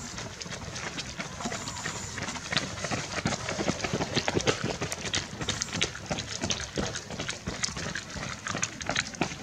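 Footsteps of a group of runners in a race: many quick, irregular shoe strikes overlapping.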